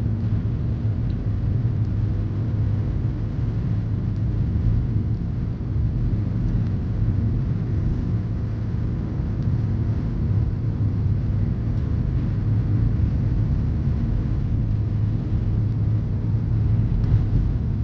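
A car driving, heard as a steady low road rumble with a constant low drone.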